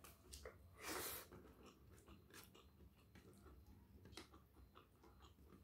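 Faint chewing and mouth sounds of a person eating rice and salted fish by hand, with small clicks scattered throughout and one louder crunchy burst about a second in.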